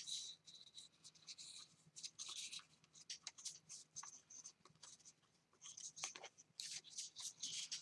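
Faint rustling and sliding of paper: a long printed paper border strip being handled and shifted against a card front, in short soft scrapes with a brief pause about five seconds in.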